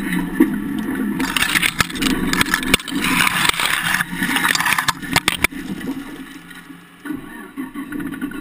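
Off-road vehicle driving through brush, heard from under its chassis: the engine runs steadily while dry grass and twigs scrape and snap against the underside, loudest from about one to five and a half seconds in, then the scraping dies away.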